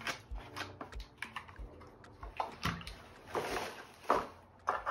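Plastic water bottle being handled: water sloshing inside, with short clicks and rustles. A faint low beat thumps about every two-thirds of a second underneath.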